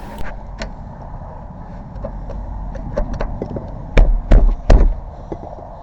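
Metal tools tapping and scraping at a door's latch gap: a putty knife and pry bar worked between door and frame to pop a knob lock's latch. Light clicks and taps, then three heavy knocks about four seconds in, over a low steady hum.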